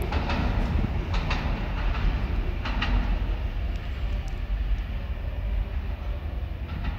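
R142A subway train rumbling away down the tunnel, its low rumble slowly fading. A few sharp clicks come in the first three seconds.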